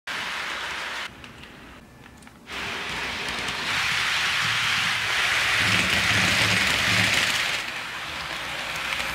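HO scale model trains rolling along Kato Unitrack, a steady hissing rattle of metal wheels on the rails with the locomotive motor running. It drops away between about one and two and a half seconds in and is loudest in the middle, as a locomotive runs close by.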